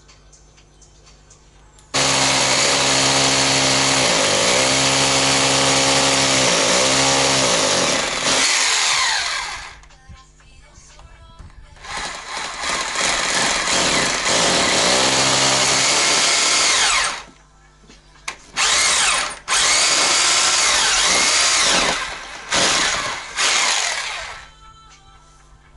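A power tool running in several bursts: a long run with its pitch dipping repeatedly under load, a second long run, then three short bursts. After each long run the tool winds down as it coasts to a stop.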